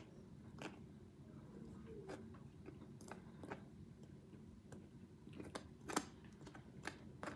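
Faint kitchen handling noises: a dozen or so irregular light clicks and taps, the sharpest about six seconds in, over a low steady hum.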